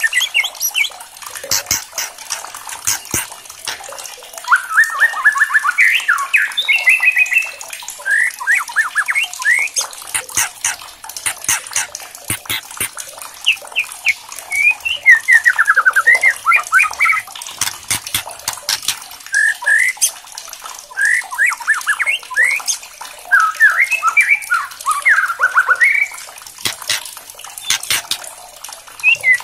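White-rumped shama singing loud whistled phrases that sweep up and down in pitch, in bursts every few seconds. Sharp dry clicks, the harsh 'kretekan' ticking of the shama, are scattered all through and between the phrases.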